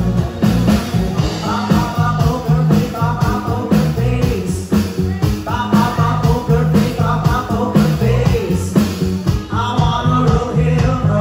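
A live band playing: a woman singing into a microphone over electric bass guitar, drums and keyboards, with a steady drum beat.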